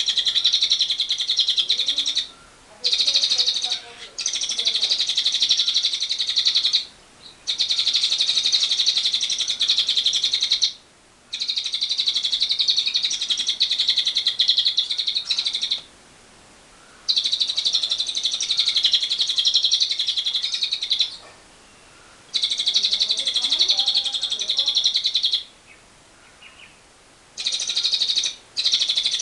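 Lovebird singing its long 'ngekek' trill: a rapid, high chattering run of notes held for several seconds at a time, repeated about eight times with short pauses between runs.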